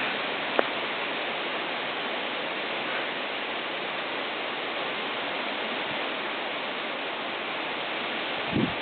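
Strong wind blowing steadily, an even rushing noise, with one sharp click about half a second in and a low thump near the end.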